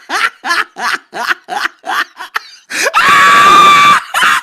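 Quick, repeated bursts of laughter. About three seconds in, a loud, steady, high blast lasting about a second cuts in and is the loudest sound.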